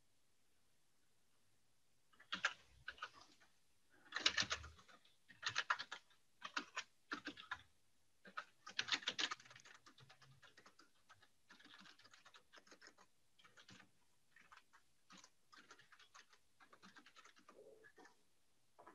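Typing on a computer keyboard in quick bursts of keystrokes, louder in the first half and softer in the second.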